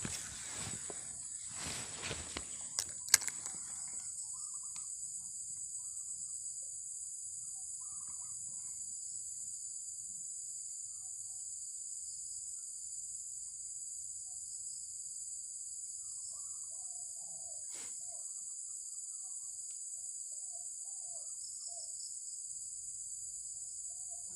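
Insects droning in a steady, high-pitched buzz, with scattered faint bird chirps. In the first few seconds there is rustling handling noise and one sharp click about three seconds in.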